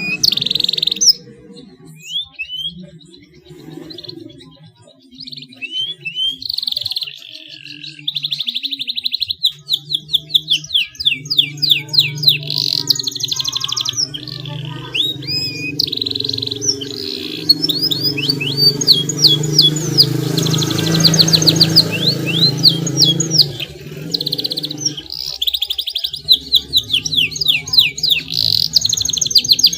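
Domestic canary singing: fast rolling trills mixed with rising and falling whistled notes, sparse for the first few seconds and then in a dense continuous stretch. A steady low hum or backing sound runs underneath the song.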